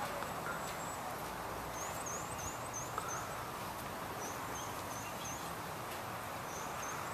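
Outdoor ambience, a steady low hiss, with a small bird's high, thin chirps in quick runs of three to five notes, heard three times.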